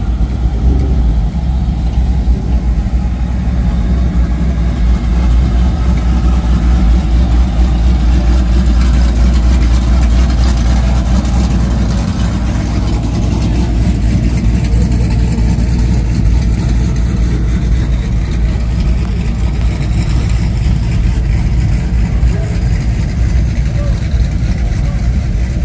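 Engines of classic Chevy pickup trucks running as they cruise past one after another, a steady low rumble that doesn't let up.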